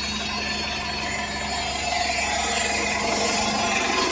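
City bus engine idling: a steady low hum with a constant drone, growing slightly louder toward the end.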